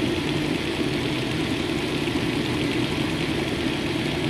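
Antique General Electric belt-drive refrigerator running on a test start: the electric motor drives the open compressor by belt, with the condenser fan turning, giving a steady mechanical hum.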